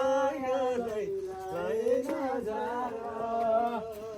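Singing: a voice holding long, slightly wavering notes one after another, with no clear words.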